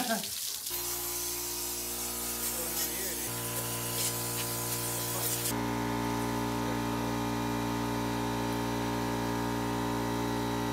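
Background music of sustained chords, over the hiss of a garden hose spraying water onto a bare engine block; the spray stops about five and a half seconds in.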